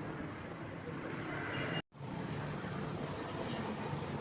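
Steady background noise of a workshop area with a low hum underneath, broken by a sudden instant of silence just under two seconds in.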